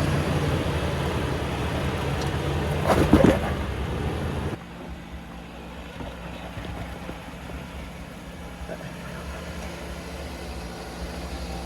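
Jeep engine running at low speed on a rock trail, with a short loud burst about three seconds in. The sound then drops suddenly to a quieter, steady engine hum.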